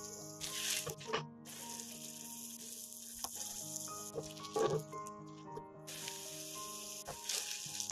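Potato hotteok sizzling as it shallow-fries in hot oil on a cast-iron griddle. The sizzle comes and goes, dropping out briefly twice.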